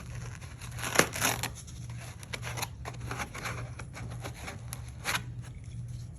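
Kaizen foam being cut and pulled apart by hand: irregular scratchy cutting and tearing noises, with a sharp click about a second in, over a low steady hum.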